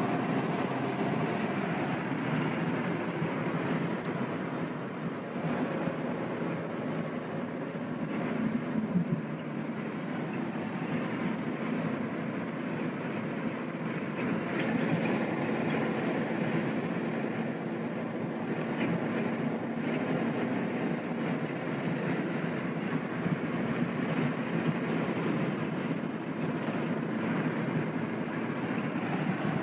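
Steady road and tyre noise heard inside a car cruising at highway speed.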